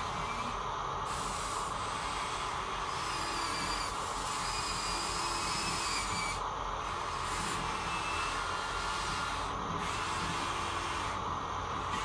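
Huina radio-controlled model excavators running, a steady whirring hiss of small electric motors with faint shifting whines.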